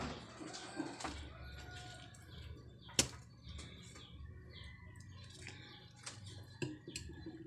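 Small birds chirping over and over, with a few sharp clicks and knocks; the loudest is a single sharp click about three seconds in.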